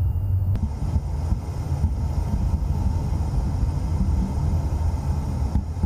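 Steady low rumble of jet engines and rushing air heard from inside a tanker aircraft in flight.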